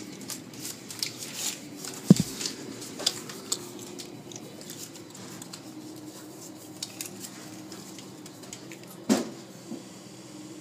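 Automatic car wash heard from inside the car's cabin: a steady low hum with scattered clicks and taps on the car, and a heavy knock about two seconds in and another near the end.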